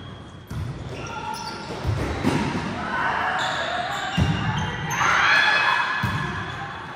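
A volleyball being hit and bouncing on an indoor court, a few separate thuds, with players' voices calling out. The loudest is a drawn-out shout about five seconds in.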